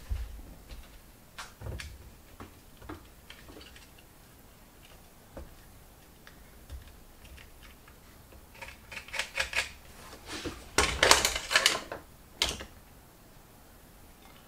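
Hands handling small tools and a paper carburettor gasket on a workbench: scattered light clicks and taps, with a louder run of rustling and clicking about nine to twelve seconds in.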